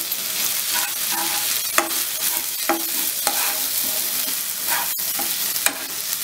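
Shrimp and lentil paste sizzling in oil in a kadai over a medium flame while a metal spatula stirs it, scraping against the pan in short strokes as the filling is cooked down. A single sharp click comes near the end.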